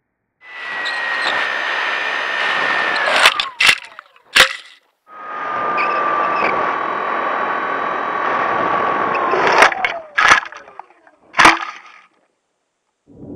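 Hobbyking Bixler 3's electric motor and propeller whining steadily over heavy wind rush on the onboard microphone. The whine winds down in pitch, then three hard thumps come as the plane crashes into the grass. The landing plays twice, the second time at half speed, so it sounds lower and slower.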